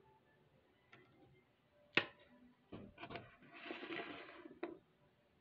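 Plastic Tangle fidget toys and a TV remote handled and set down on a wooden tabletop: a sharp knock about two seconds in, a few quicker clicks, then about a second of scraping as things are slid across the wood, ending in a click.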